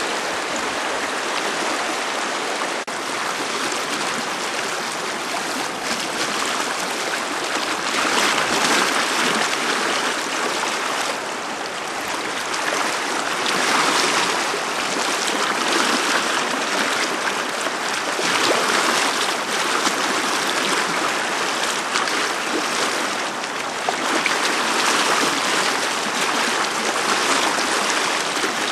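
Rushing water of a shallow, rocky river rapid, running steadily over stones and around boulders, growing somewhat louder about eight seconds in.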